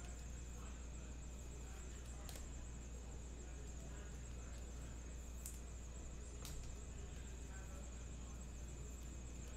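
Steady low electrical hum with a faint high-pitched whine, and a few soft ticks about two, five and a half and six and a half seconds in.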